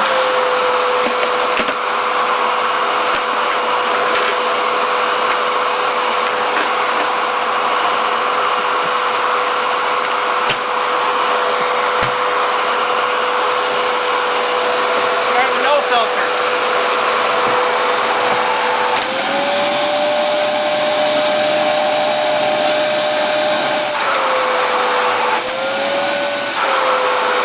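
Bagless Hoover vacuum cleaner running with a steady motor whine and airflow hiss; the whine steps up in pitch about two-thirds of the way through and wavers down and up again near the end. The vacuum is giving almost no suction.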